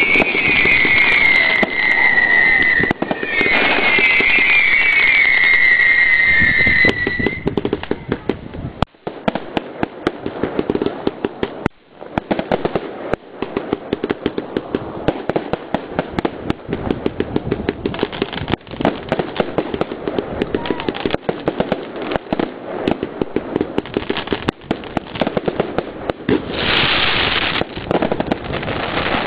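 Aerial fireworks display: two falling whistles over the first seven seconds, then a long run of rapid bangs and crackling from bursting shells.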